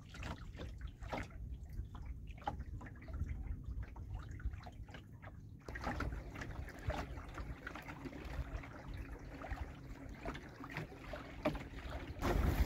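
Water trickling and lapping along the hull of a small sailing dinghy under sail, with scattered small clicks over a low, steady rumble; the background changes abruptly a little before halfway.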